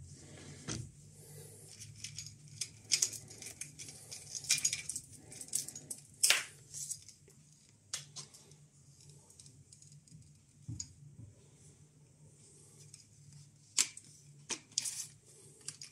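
Hand-handling of a dosimeter's extension pole and its fittings: scattered clicks, taps and rustles at irregular intervals as it is turned and moved, the sharpest about six seconds in, over a low steady hum.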